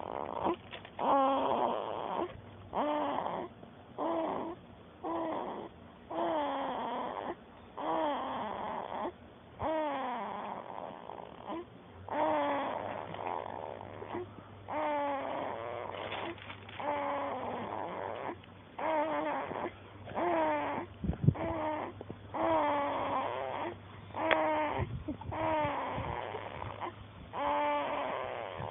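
Sleeping baby snoring: a short, squeaky snore on each breath, about once a second, each one falling in pitch.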